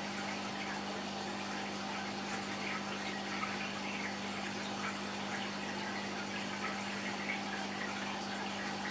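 Aquarium water circulating: a steady trickling, bubbling water sound over a constant low hum, with no change throughout.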